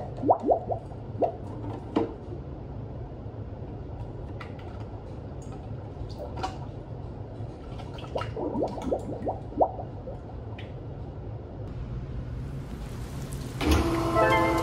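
Thick mixed-berry sorbet base pouring from a plastic container into an ice cream machine, making bubbly, cute-sounding blooping drips. The bloops come in quick clusters near the start, about two seconds in, and again around eight to ten seconds.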